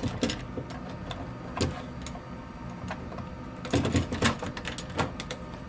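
Electrified mortise lock body being pushed into the mortise pocket of a wooden door: a few scattered knocks and scrapes, with a cluster of them about four seconds in as it seats.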